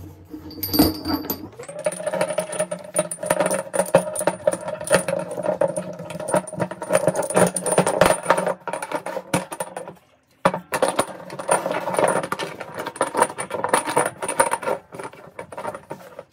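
Steel chain links clinking and jangling against each other and the wooden bench as the chain is handled and wiped down with a rag. A steady hum runs behind from about two seconds in.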